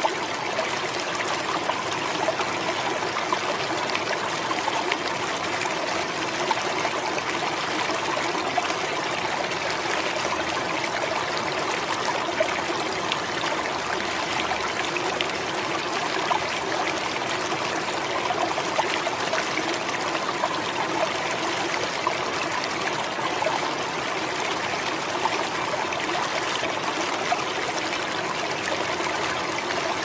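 River water flowing, steady and even with fine splashing.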